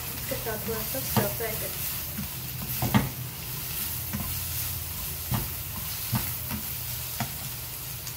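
Julienned carrots, green capsicum and chicken sizzling in a non-stick wok as a spatula stir-fries them. The spatula scrapes and knocks against the pan several times at uneven intervals, the loudest knock about three seconds in.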